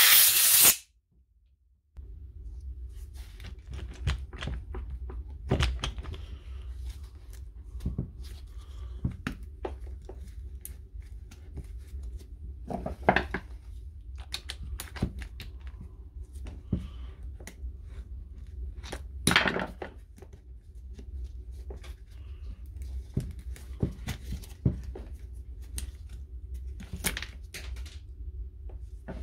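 Plastic and metal parts clicking and knocking as the brushed motor and its worn carbon-brush holder are worked out of a cordless impact wrench's plastic housing, with a few sharper knocks; a loud hiss of under a second opens, and a steady low hum runs underneath.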